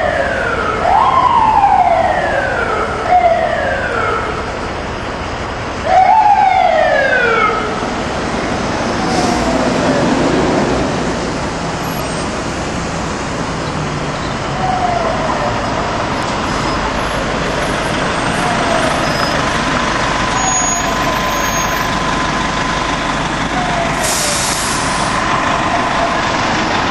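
Fire engine's siren giving two long whoops that rise quickly and fall slowly, then short falling chirps every two or three seconds as the engine pulls up, over the low rumble of its engine.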